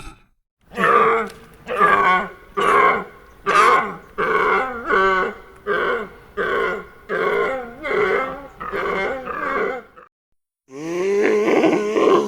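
An animal making a rapid series of short, pitched calls, about two a second, that stop abruptly; after a brief silence another call starts near the end.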